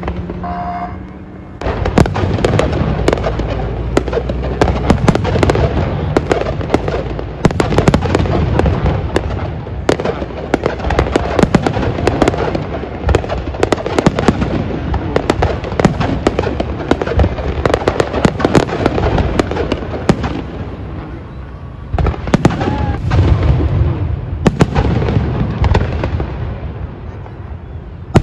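Aerial fireworks display: a near-continuous barrage of bangs and crackling that starts about two seconds in, eases briefly about three-quarters of the way through, then picks up again.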